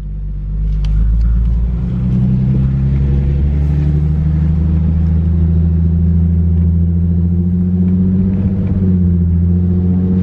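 Infiniti G37S's V6 engine running through a loud exhaust at low revs, a steady low drone that grows louder over the first second or two as the car creeps forward.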